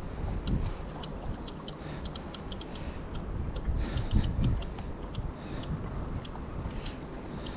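Spinning reel clicking in sharp, irregular ticks, some in quick runs, while a big crevalle jack pulls against the bent rod. A low wind rumble sits on the microphone underneath.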